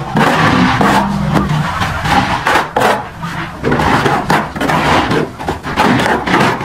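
Steel plastering trowel scraping and slapping cement mortar, scooping it from a metal mortar tray and spreading it onto a brick wall, as a run of short, sharp scrapes.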